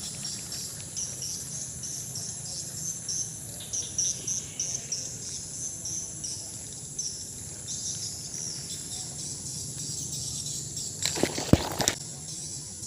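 Insects chirping in a steady chorus: rapid runs of short, high chirps over a continuous high drone. About eleven seconds in there is a brief, loud, noisy burst with a few sharp clicks.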